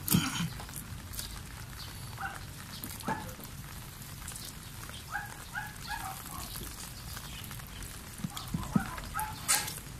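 Water from a garden hose splashing and running over a car windshield as the glass is rinsed, with a few short high calls about five seconds in and a couple of sharp knocks, the loudest near the end.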